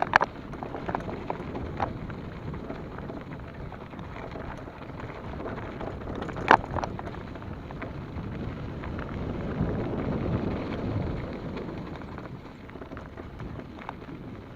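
Mountain bike riding along a dirt forest trail: steady tyre and wind noise on an action camera's microphone, with a few sharp clacks as the bike rattles over bumps, the loudest about six and a half seconds in.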